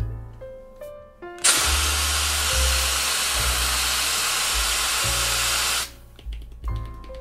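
An aerosol spray can letting out one continuous hiss of about four seconds, starting about a second and a half in and cutting off sharply.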